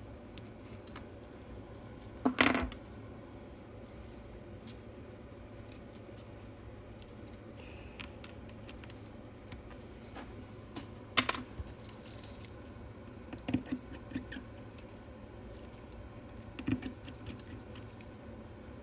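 Scattered light clicks and taps of small repair tools and parts being handled. There is a louder scrape about two seconds in and a sharp click about eleven seconds in.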